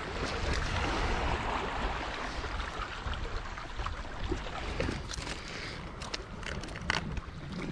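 Wind buffeting the microphone over the wash of the sea, with a few sharp clicks near the end.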